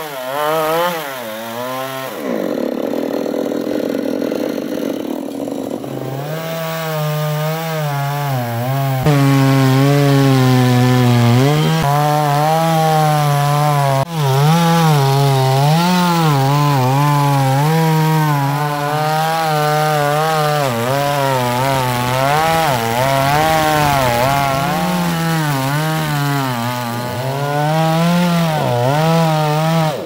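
Petrol two-stroke chainsaw cutting through a coconut palm trunk at high revs, its engine note wavering up and down as the chain bites into the wood.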